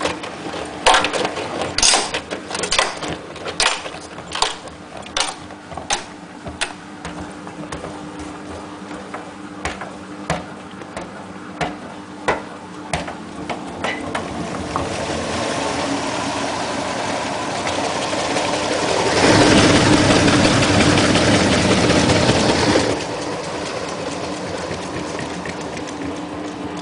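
Hotpoint WT960 washing machine running with a steady low hum. Over the first dozen seconds there is a row of sharp clicks, roughly one a second. A rushing noise then builds up, is loudest for about four seconds in the second half and drops off suddenly.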